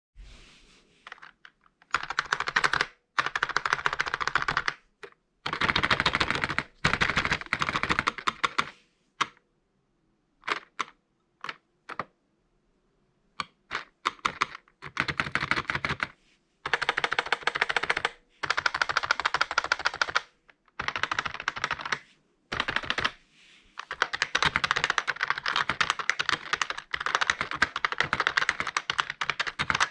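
Typing on an IBM Model M keyboard, membrane version. Fast runs of keystrokes come in bursts of a few seconds with short pauses between them. About a third of the way in there is a sparse stretch of a few single key presses, and near the end the typing runs on without a break.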